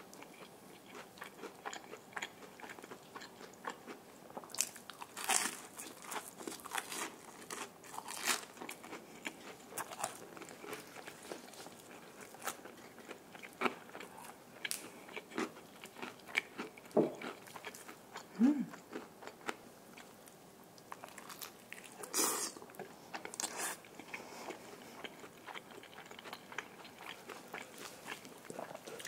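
Close-miked biting and chewing of crispy Korean fried chicken. The crust gives sharp, loud crunches in irregular clusters, with quieter chewing in between.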